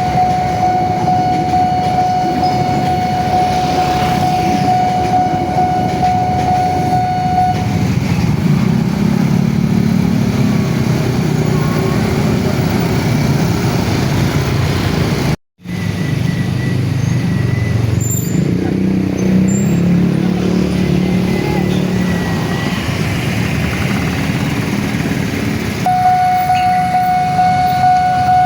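Railway level-crossing alarm sounding a steady high tone, which stops about eight seconds in, leaving a loud low vehicle rumble. The sound drops out for an instant about halfway through, and the same alarm tone starts again near the end.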